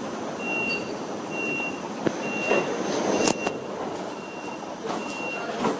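Door-closing warning beeps of a DB Class 425 S-Bahn electric multiple unit: six short high beeps about once a second, warning that the open doors are about to close. Station background noise runs under them, with a few sharp knocks, the loudest about three seconds in.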